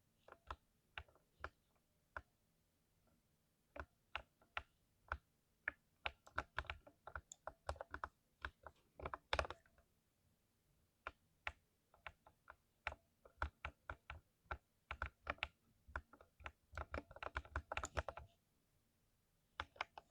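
Typing on a mechanical keyboard with lubed switches: irregular keystrokes, single presses at first, then quicker runs, with a brief pause near the middle and a fast burst near the end.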